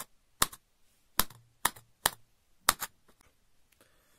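Wooden toothpick punching through cling film stretched over plastic cups: a series of about six sharp pops, roughly one every half second, that stops about two-thirds of the way through.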